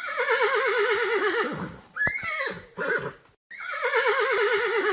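A horse whinnying twice. Each whinny is a long, quavering call that falls in pitch and ends in a few shorter calls, with a brief silence between the two.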